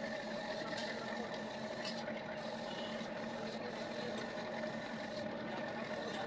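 A machine running steadily, a constant hum with a few fixed tones.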